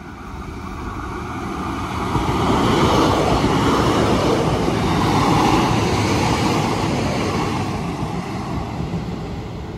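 A Class 156 and a Class 150 diesel multiple unit, coupled together, passing through the station: engine and wheel-on-rail noise swelling to a peak about three to six seconds in, then fading away.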